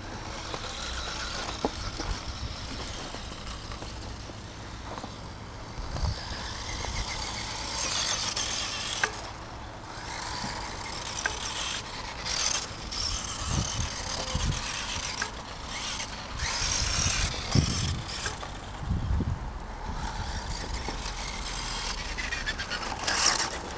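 Radio-controlled Tamiya Holiday Buggy driving on hard snow: its motor and gears whine, rising and falling as it speeds up and slows, over a hiss that swells and fades. A few low thumps come in the middle stretch.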